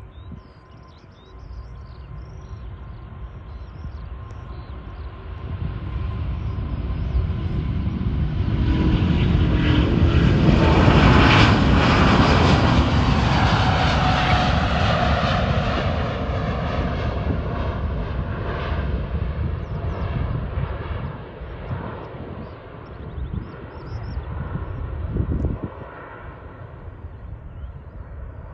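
Twin-engine widebody jetliner taking off at full thrust: the jet engine noise builds as it rolls down the runway, is loudest as it passes and lifts off about a third of the way in, with a fan whine that drops in pitch, then fades slowly as it climbs away.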